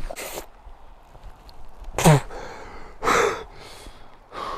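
A man's short breathy gasps and a sharp grunt with a falling pitch about two seconds in, the effort sounds of a man being hauled to his feet.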